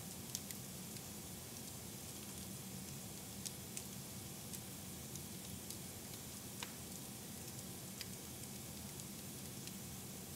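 Wood fire burning in a fireplace: a steady hiss with scattered sharp crackles and pops.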